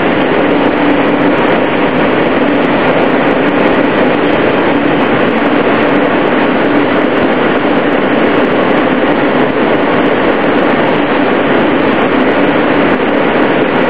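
Interior of an R160A-2 New York subway car running between stations: a steady, loud rumble of wheels on rail with one constant hum running through it.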